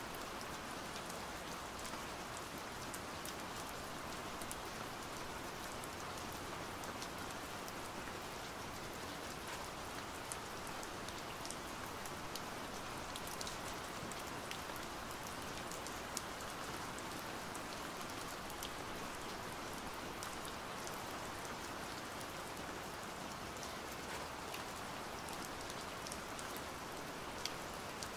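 Steady rain falling: an even hiss of rain with scattered sharp drop ticks.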